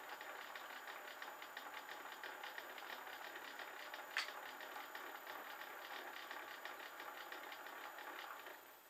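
Clarke CL500M mini lathe running a thread-cutting pass, the spinning chuck and geared feed giving a steady, fast, even rattle. A single sharp click comes about four seconds in, and the lathe stops just before the end.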